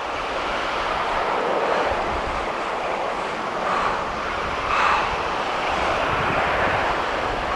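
Steady rush of surf and wind buffeting the microphone, with a slight swell about five seconds in.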